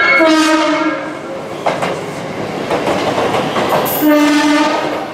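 A JR West electric train's music horn finishes its melody in the first second, followed by train running noise. About four seconds in, a train's air whistle gives one short, steady blast.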